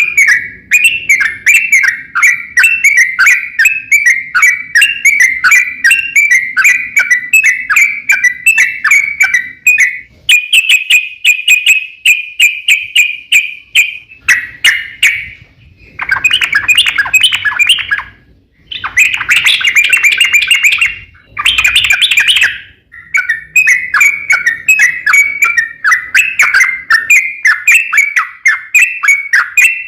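Yellow-vented bulbul (trucukan) song: long runs of rapid chattering notes, broken by a few short pauses near the middle.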